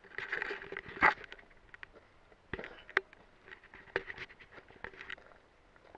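Footsteps on gravel: irregular crunches and sharp clicks about once a second, the loudest about a second in.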